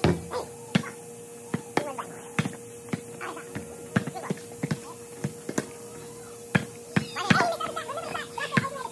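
A basketball bouncing and thudding on a court, about a dozen irregular bounces, over a steady hum, with voices faintly behind.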